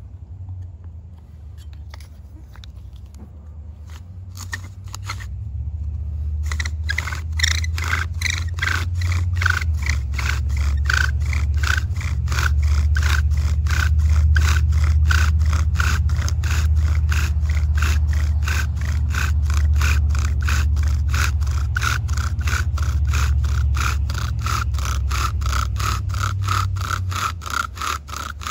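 Bow drill in use: a horseweed spindle spun back and forth on a Leyland cypress fireboard, scraping and squeaking with each bow stroke. It starts with a few light strokes, then from about six seconds in settles into fast, steady strokes that grow louder, with a steady squeal over a low rumble.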